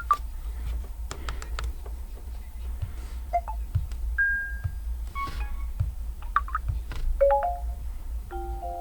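Huawei MatePad Pro 12.6 tablet's built-in notification tones played through its speakers, one short chime after another, each only a few quick electronic notes. Some are a single note and some are small runs or chords. A few sharp clicks come about a second in, over a steady low hum.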